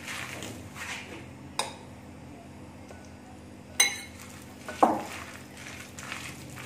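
A hand squishing and mixing thick gram-flour pakora batter with sliced potato, onion and spinach in a glass bowl, with three sharp clinks against the glass, the loudest about four seconds in.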